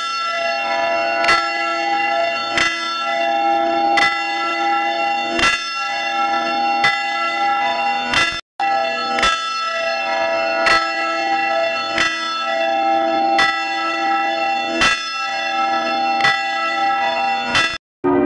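Church bell tolling steadily, one strike about every 1.4 seconds, each stroke ringing on into the next. The sound drops out abruptly to silence for a moment just past the middle and again near the end.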